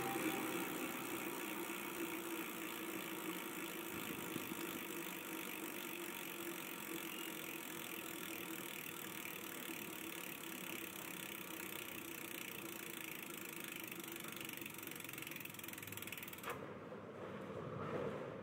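Bicycle rear wheel spinning freely and slowly coasting down past a freshly re-padded Tektro hydraulic disc brake, the freehub ratcheting as it turns. The sound fades and drops away about sixteen seconds in as the wheel comes to rest.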